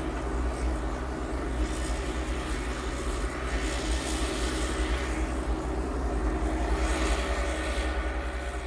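Yanmar mini excavator's diesel engine running steadily under work, with a hiss that rises and falls every few seconds.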